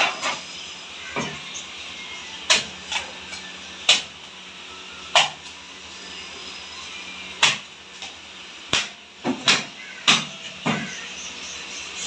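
Irregular sharp chops and knocks of a fish knife and a fish on a wooden chopping block as the fish is cut and cleaned: about a dozen hits with uneven gaps between them. A faint steady hum runs underneath.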